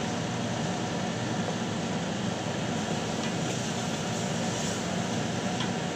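Chicken feet being stirred in a pot of braising sauce with a wooden spatula, sizzling over a constant low hum and hiss.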